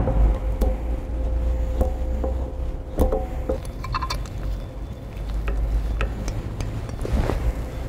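Scattered light metallic clicks and clinks of hand tools and metal parts as the robot's H-axis motor is unbolted and freed, over a steady low hum.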